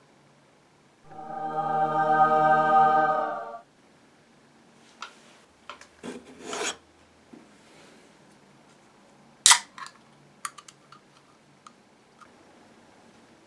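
A long, steady pitched sound with many overtones, lasting about two and a half seconds, starts about a second in. Then a metal drink can is handled: light knocks and scraping, a sharp crack about nine and a half seconds in as the ring-pull is worked, and a few small clicks after.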